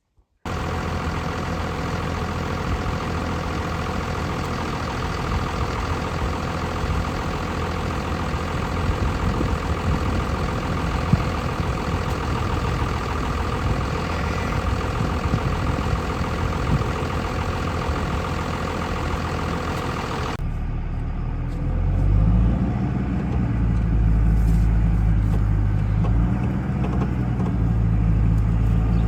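Motor vehicle engine running while driving, with steady road and engine noise. About twenty seconds in, the sound changes abruptly to a deeper engine note that rises and then holds steady.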